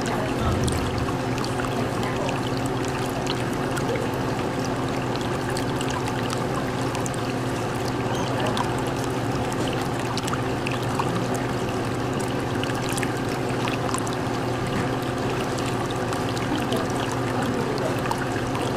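Steady running and trickling water from an aquarium's water flow, with a low steady hum and many small scattered pops and clicks.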